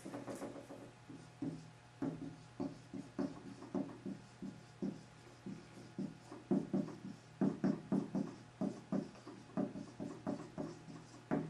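Dry-erase marker writing on a whiteboard: a long run of short, irregular strokes and taps, a few each second, as letters are written.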